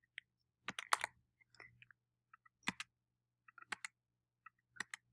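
Faint, scattered clicks of a computer keyboard and mouse as a line of code is copied and pasted, coming singly or in quick pairs with the strongest cluster about a second in.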